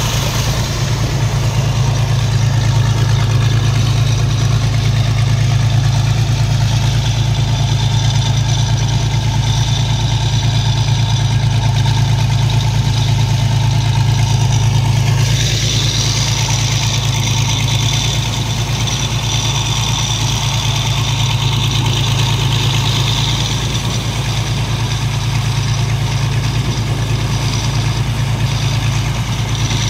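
Diesel engine of the mud-dredging machinery running steadily at a constant speed, with a strong low drone. From about halfway a hiss of rushing water joins it: mud slurry flowing out over the ground from the discharge pipe.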